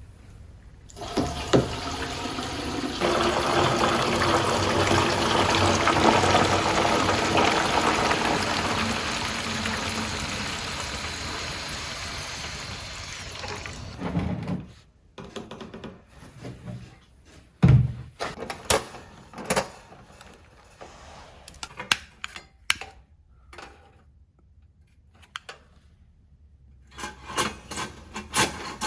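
A long rushing noise that swells over a few seconds and then slowly fades after about thirteen seconds, followed by scattered sharp clicks and knocks.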